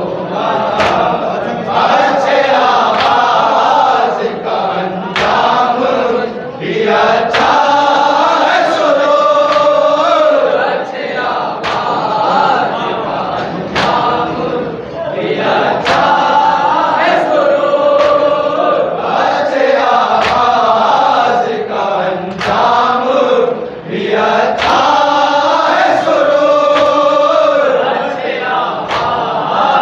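A group of men chanting a noha-style salam in unison, a mourning lament whose melodic phrase repeats about every eight seconds. Sharp slaps of hands on chests (matam) keep a steady beat of roughly one a second.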